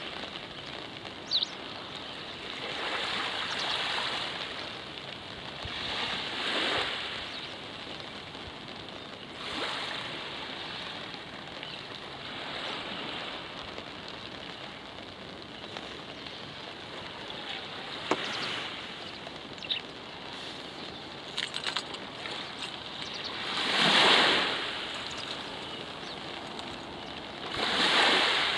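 Small Baltic Sea waves lapping and washing up onto a sandy beach, one swell every few seconds, the largest about two-thirds of the way through, over a steady hiss. A few brief ticks.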